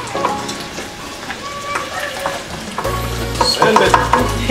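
Onions, tomatoes and peppers sizzling in an aluminium sauté pan while a wooden spoon stirs and scrapes them, with sharper clicks of the spoon against the pan near the end. Background music with a deep bass comes in about three seconds in.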